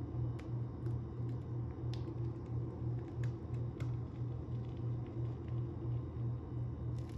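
A steady low mechanical hum that pulses evenly, with scattered light clicks over it.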